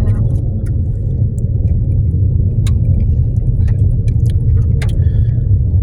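Steady low rumble of a car driving, heard from inside the cabin, with scattered light clicks and rattles.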